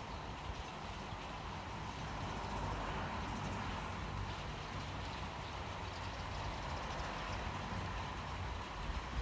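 Steady rain falling, an even hiss with a low rumble under it and a brief louder tap near the end.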